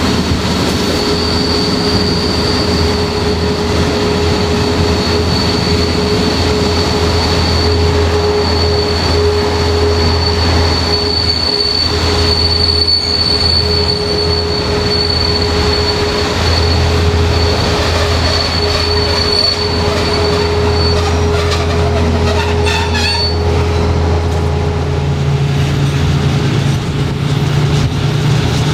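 Passenger train coach running on rails, heard from inside: a steady running rumble with a sustained high wheel squeal that stops about two-thirds of the way through. A few clicks follow as the wheels cross rail joints, and a low hum comes in near the end.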